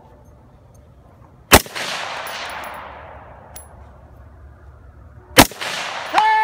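Two rifle shots about four seconds apart, each with a long echo fading away downrange. A steady tone begins right at the end.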